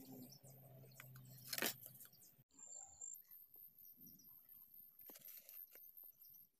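Near silence, with faint handling sounds of a marker and ruler against a PVC pipe, and one short scrape about one and a half seconds in.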